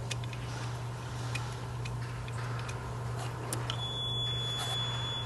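Scattered light clicks and ticks of hand tools and fingers working the ignition coil pack's mounting bolts, over a steady low hum. About two-thirds of the way in, a steady high-pitched beep begins and holds.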